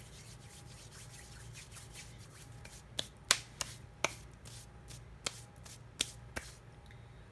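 Kinetic sand being cut and handled: a faint gritty rubbing, then from about three seconds in a run of about seven sharp clicks and taps as the cutting tool knocks against a hard surface, the loudest early in the run.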